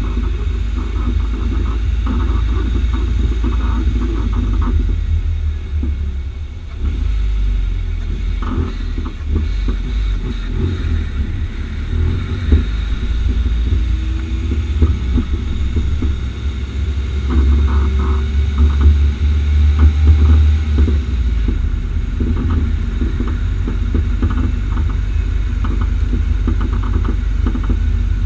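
Low rumble of a Renault Megane III, with clusters of short pops and creaks every few seconds from the front-right Bilstein PSS9 coilover on H&R springs as the suspension works. This popping has come back after two repairs, and the owner does not know its cause.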